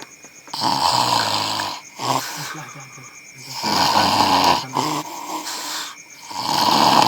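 A sleeping man snoring loudly: three long, rough snores about three seconds apart, with a short weaker breath sound between the first two.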